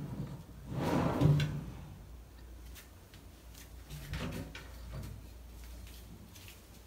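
A kitchen drawer slid shut about a second in, then a quieter knock near four seconds as a lower kitchen cabinet door is opened.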